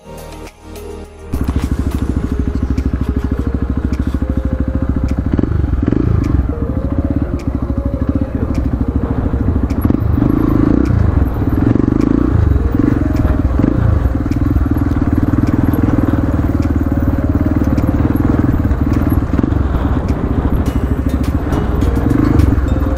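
Single-cylinder four-stroke dirt bike engine running while riding, its pitch rising and falling with the throttle. It begins abruptly about a second in.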